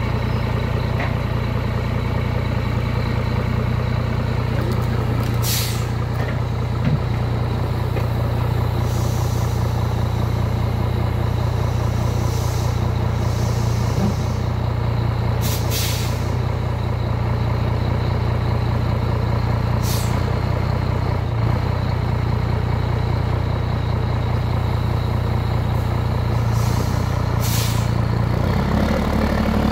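Diesel engine of a loaded Scania semi-truck running steadily as the rig creeps through mud, with several short hisses of compressed air. Near the end the engine note rises.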